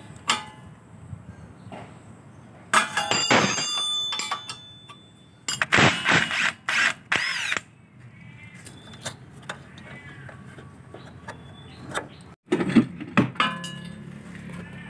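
Impact wrench running in two bursts, about three seconds in and again around six seconds in, undoing the bolts that clamp a Perodua Myvi's front shock absorber strut to the steering knuckle; its whine rises and falls in the second burst. A few sharp metal knocks come near the end as the strut is worked free.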